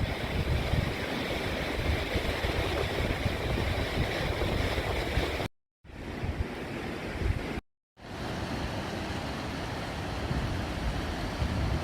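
Strong wind gusting and buffeting the microphone, with a steady rushing hiss and shifting low rumble. The sound drops out abruptly twice, about five and a half and seven and a half seconds in, where clips are cut together.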